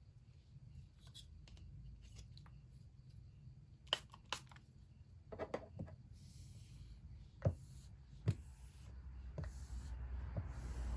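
Quiet small handling sounds: scattered light clicks and taps with short stretches of soft rustling, over a low steady hum.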